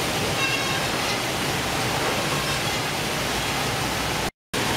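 Steady noise of fish processing machinery running, cut off briefly near the end.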